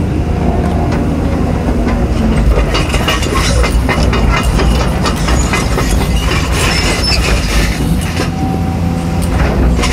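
Caterpillar 320D excavator's six-cylinder diesel engine running under load with its hydraulics working. From about two and a half to eight seconds in, dense metallic clattering and scraping as the bucket digs into the sandy, rocky ground.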